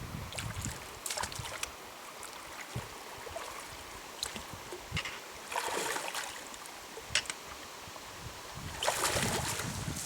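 Footsteps wading through a shallow stony river: a faint steady rush of water with scattered clicks of stones, and two louder splashes of about a second each, one about halfway through and one near the end.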